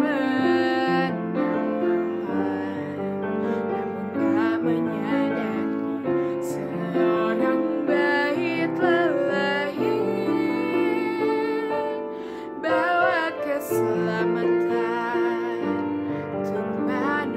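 A young woman singing a slow ballad solo with piano accompaniment, her held notes wavering with vibrato.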